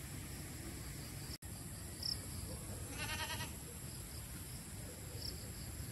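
A goat bleats once, a short wavering call about three seconds in, over a steady chorus of insects.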